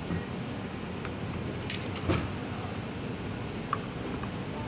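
Pizza pans set down on a table and a metal pizza server clinking against them: a few sharp knocks and clinks, the loudest about two seconds in, over a steady room hum.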